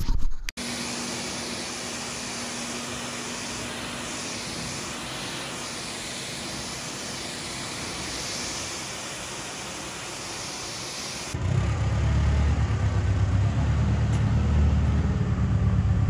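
Pressure-washer spray hitting the sheet-metal side panels of a John Deere S660 combine, a steady hiss, as the combine is rinsed off. About eleven seconds in it cuts abruptly to a louder low rumble.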